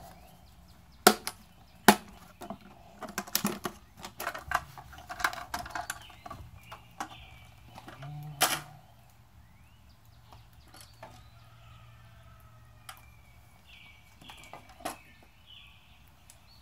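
Hard plastic case being handled: a run of sharp clicks, knocks and clatter, loudest in the first half, with one strong knock about eight seconds in, then a few scattered taps.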